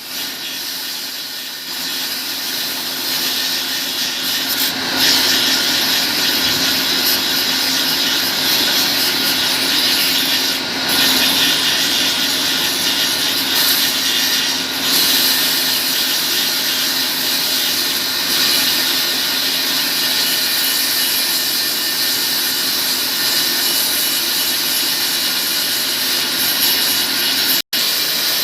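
Sawmill machinery running steadily: a continuous hissing, sawing noise over a low, even hum. The sound cuts out for an instant near the end.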